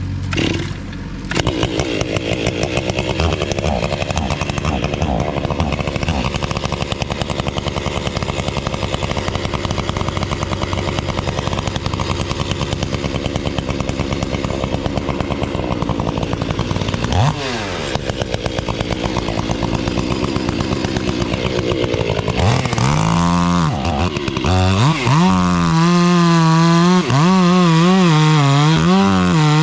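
Gas chainsaw running at high revs through a cut in a tree trunk. Its engine note dips briefly past halfway, then wavers up and down over the last several seconds as the saw loads and frees in the cut.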